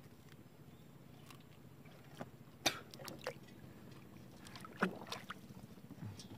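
A live mangrove jack on a line is lowered over the side of a wooden boat into the river, with a few short knocks and small splashes against the hull over a faint steady background. The loudest sounds are two sharp knocks, one about two and a half seconds in and one near five seconds.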